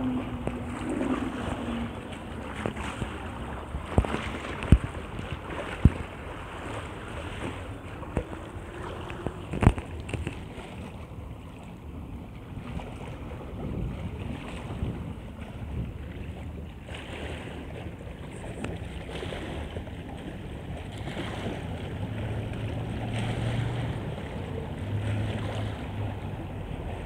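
Wind buffeting the microphone over choppy river water splashing, with a few sharp knocks in the first ten seconds and a low hum near the end.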